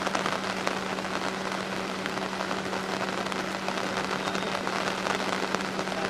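Steady rain falling on a flooded street: an even hiss dense with small drop patters. A low steady hum runs underneath.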